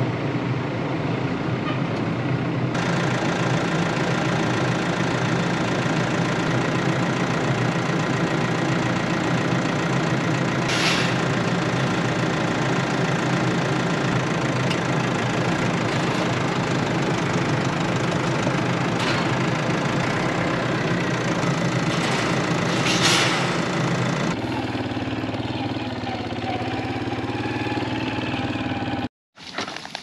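Tractor engine running steadily as the loader tractor carries a hay bale, heard from inside the cab, with a couple of brief rattles. About six seconds before the end the engine note drops lower and a little quieter.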